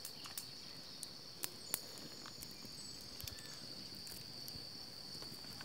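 Faint, steady high-pitched chirring of insects, with a few light clicks scattered through it.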